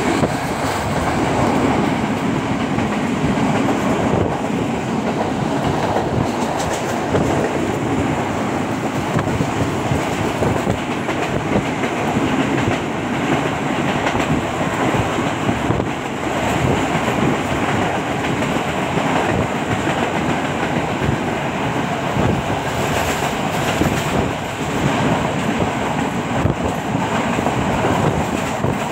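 Passenger train running at speed, heard from aboard: the steady noise of the wheels on the rails, with a dense, irregular rattle and clatter.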